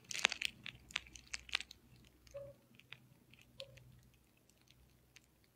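Faint mouth clicks and smacks close to a phone's microphone: a quick run of them in the first two seconds, then a few scattered ones, with two very short hums a little later.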